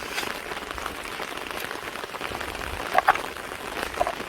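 Steady hiss and fine patter of water, with two brief high-pitched sounds about three and four seconds in.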